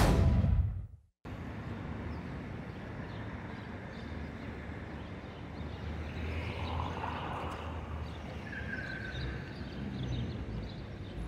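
Rock intro music ending in the first second, then, after a moment of silence, city street ambience: a steady low rumble of road traffic with passing vehicles, and a brief faint high tone about nine seconds in.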